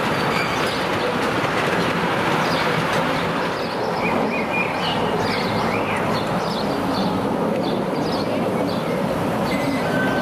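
Ride-on miniature garden-railway train, a red Swiss electric-locomotive replica pulling a driver's wagon, running steadily along its ground-level track as it approaches and passes close by. There are short high chirps in the middle.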